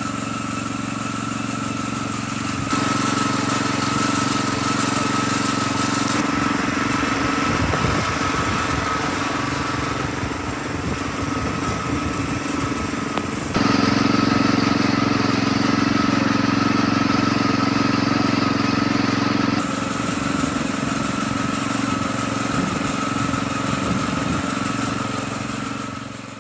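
Wheel Horse garden tractor engine running steadily at a constant speed while being driven, with sudden small jumps in level and tone every few seconds, fading out at the end.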